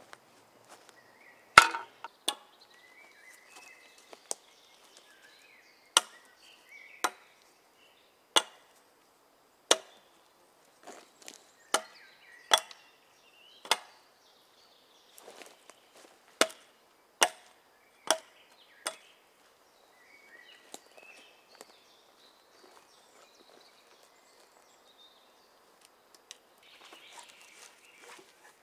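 A wooden club striking an upright wooden pole: sharp wood-on-wood knocks, about sixteen blows at uneven spacing of roughly a second, which stop about two-thirds of the way in. Near the end there is a short soft rustle of handling.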